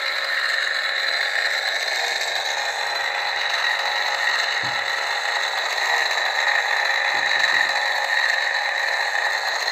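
Converted Hasbro Force FX Kylo Ren lightsaber playing its Kylo Ren unstable-blade sound font: a steady hum with constant crackling.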